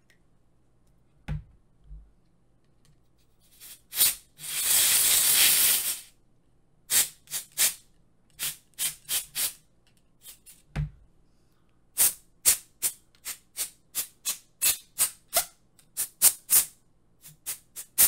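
A screwdriver and hands working inside the opened Nvidia Shield TV Pro: two dull knocks near the start, a rasping noise of about two seconds around four seconds in, then a long run of short sharp clicks, about two to three a second.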